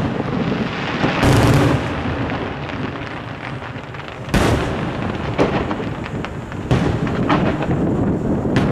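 Aerial fireworks shells bursting: a string of sharp bangs, the sharpest about four and a half seconds in, with a continuous low rumble between them.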